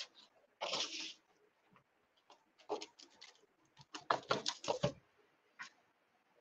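Handling noises: a brief rustle about half a second in, then quick runs of small clicks and taps around three and four seconds in, as of objects being picked up and set down.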